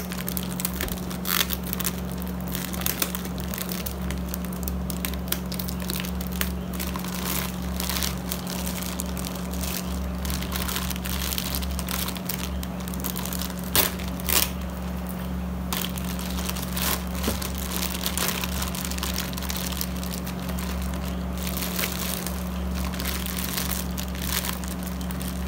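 Clear plastic packaging bag crinkling and crackling as it is pulled and worked off a mixer grinder's motor base, in irregular bursts with a few sharper snaps about two thirds of the way in. A steady low hum runs underneath.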